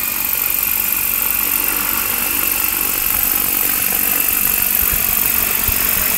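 Small unmanned helicopter's engine and rotors running steadily as it hovers carrying a slung bucket, a constant high-pitched whine over a dense hiss.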